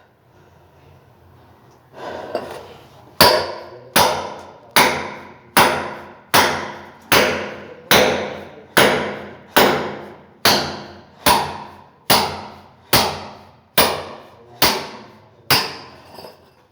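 A hammer striking about sixteen times at a steady pace, roughly one blow every 0.8 seconds, each blow ringing briefly as it fades. The blows start a few seconds in and stop shortly before the end.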